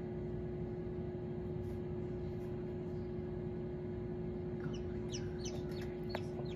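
Newly hatched chick peeping: a quick run of short, high peeps that fall in pitch, starting near the end. They sound over the steady hum of a small plastic egg incubator.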